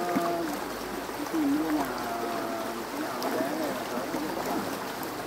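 People talking indistinctly over a steady hiss.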